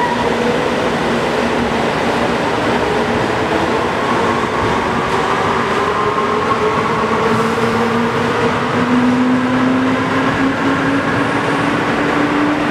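JR Kyushu 787 series electric limited express train accelerating away from the platform, its motors whining in several tones that rise steadily in pitch, over the running noise of the wheels on the rails.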